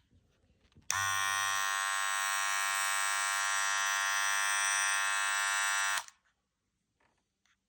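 A loud, steady electric buzz that switches on abruptly, holds one unchanging pitch for about five seconds, and cuts off suddenly.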